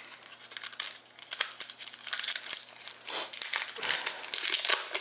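Crinkling and rustling of hockey card packaging and cards being handled, in many quick, irregular crackles.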